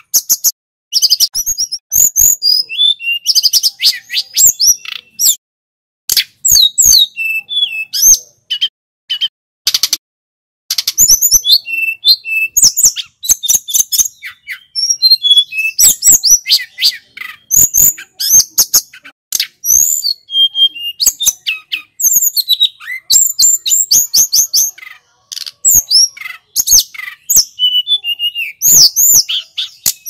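Caged tledekan gunung (hill blue flycatcher) singing a long, loud run of quick, varied whistles and trills in close phrases with short pauses.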